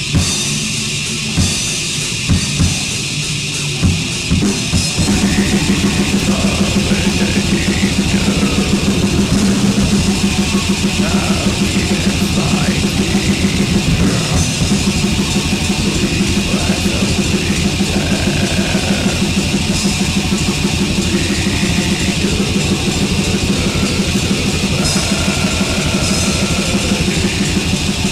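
Black metal song with distorted guitars and drum kit. A few separate drum hits in the first seconds give way, about five seconds in, to fast, continuous drumming under a steady wall of guitar.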